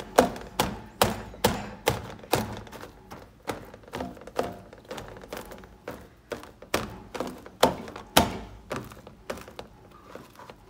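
Buttered hands pressing sticky marshmallow-coated chocolate cereal down into a baking pan, a thunk with each press, about two a second, softening near the end.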